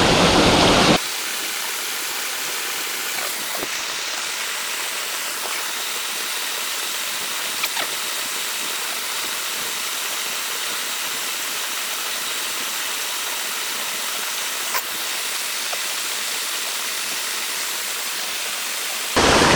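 Steady rush of stream water pouring over a sabo (erosion-control) dam, louder for about the first second and then a level, even hiss, with a few faint clicks.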